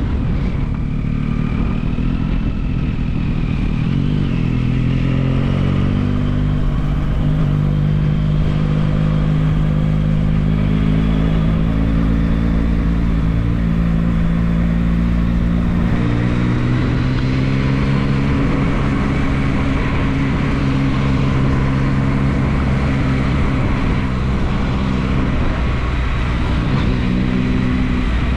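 Yamaha MT-09 SP motorcycle's three-cylinder engine running on the road. The engine note rises over the first few seconds as it accelerates, then holds fairly steady, with changes in pitch about halfway through and again near the end.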